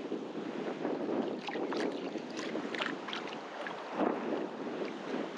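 Wind buffeting the microphone over surf washing onto the beach, a steady rushing noise, with a few faint short clicks in the middle.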